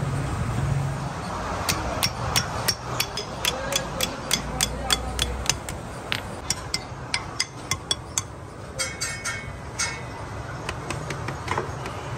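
Small hammer tapping steel transformer laminations into a welding transformer's core: a quick series of light metallic taps, about three a second, with a few ringing clinks of metal a little after the middle.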